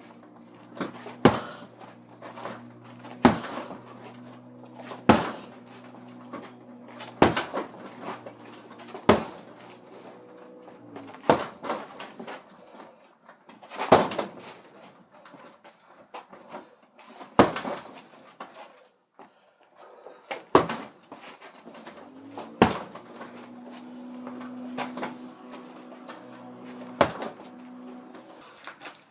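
Strikes landing on a heavy bag: a sharp thud every two seconds or so, with lighter hits in between, over a low steady hum.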